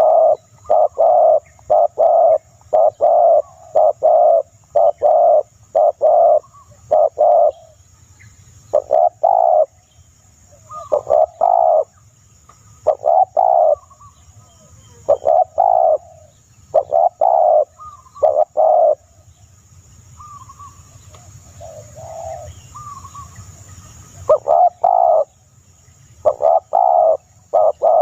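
A bird calling in runs of short, hollow, low notes, about two a second, with a few pauses between runs.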